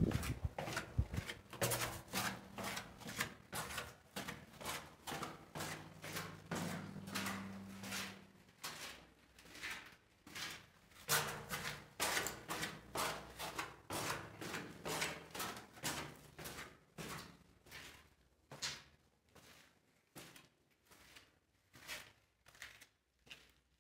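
Footsteps on concrete steps and floor inside a concrete bunker, a regular tread of about two steps a second. They grow sparser and fainter near the end.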